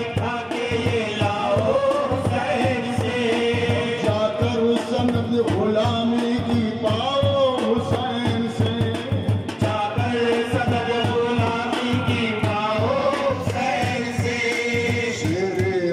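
Men singing a devotional Urdu song about Husain into microphones over a PA, with long held notes, and a steady beat underneath.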